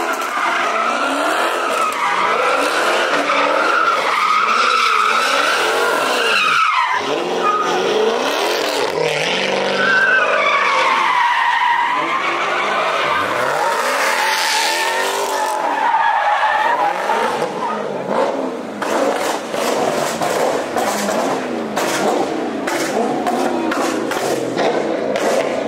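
Dodge Charger drifting in donuts: tyres squealing with a wavering pitch while the engine revs up and down over and over.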